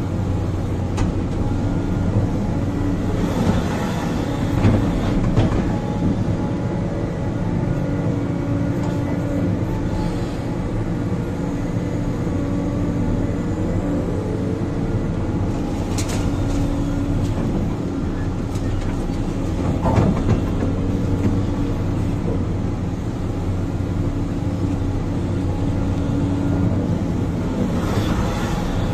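Diesel engine of a 490-class Sumitomo excavator, heard from inside the cab, running steadily under working load. A few knocks and clatters come as the bucket dumps soil into a dump truck and digs into the trench.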